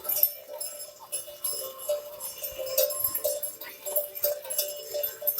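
Neck bells on a herd of cattle clanking and jingling irregularly as the animals move.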